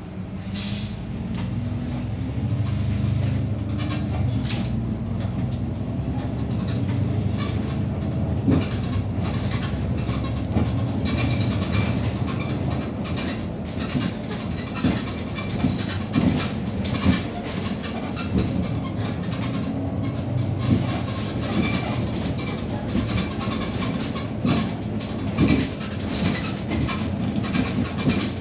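Interior of an Irisbus Citelis 12 m city bus on the move: the engine drone rises as the bus picks up speed over the first few seconds, then runs steadily under frequent rattles and knocks from the cabin.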